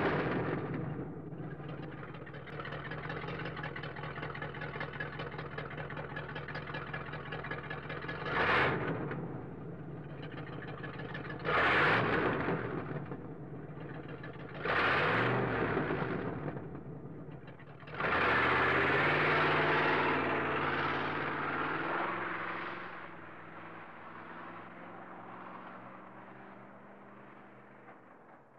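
A car engine idling and revved several times: three short blips a few seconds apart, then a longer rev held for a few seconds. Afterwards it settles back and fades away near the end.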